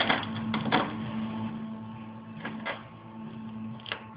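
Mac computer's CD drive mechanism running with a steady hum. Sharp clicks and knocks come near the start, as a pair about two and a half seconds in, and once near the end.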